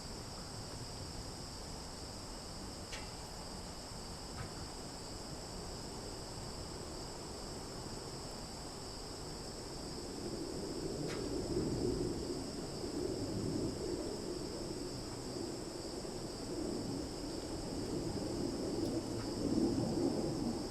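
Summer insect chorus of crickets and cicadas, a steady high-pitched shrill throughout. A low rumble grows in from about halfway, and a few faint clicks sound early on and near the middle.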